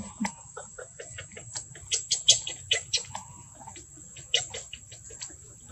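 Irregular crackling and rustling of dry leaves and twigs as monkeys move and shift on the leaf litter, with a steady high-pitched whine underneath.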